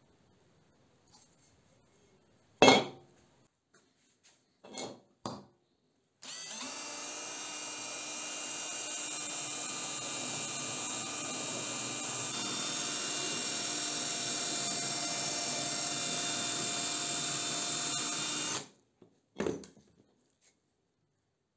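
Greenworks cordless drill running steadily with a whine, drilling into a flat metal bar for about twelve seconds before stopping suddenly. A sharp, loud knock comes a few seconds before it, with a couple of lighter knocks just before the drill starts and another just after it stops.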